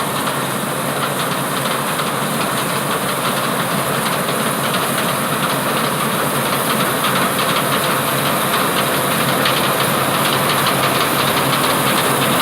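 Combine harvester running steadily: a loud, even mechanical din with a hissing rush, growing slowly louder over the stretch.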